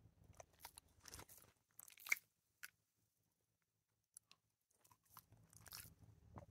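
Shiba Inu's mouth noises close up: faint wet smacks and clicks of lips and tongue as it stirs from sleep, with one sharper click about two seconds in. A near-silent pause during a wide yawn, then more faint smacking near the end.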